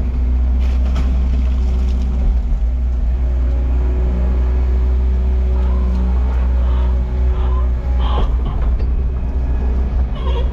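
Skid steer loader's diesel engine running steadily under load, heard from inside the cab, with a couple of short clatters about eight seconds in.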